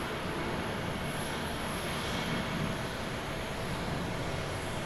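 Twin jet engines of a Boeing 767-300ER at takeoff thrust during the takeoff roll: a steady, even rush of jet noise with a faint constant whine.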